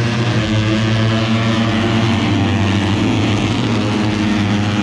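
An engine running steadily at a constant pitch: a loud low drone with many overtones, not revving.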